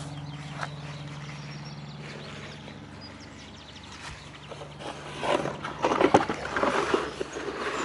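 A steady low hum. From about five seconds in come clicks, knocks and rustling as the USB multimeter and the folding solar charger panel are handled and plugged together.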